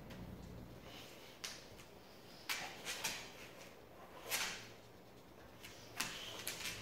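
Boxer dog playing with a plush toy on a hard floor: about six short scuffs and swishes, spread out, as the toy is mouthed, tossed and dragged.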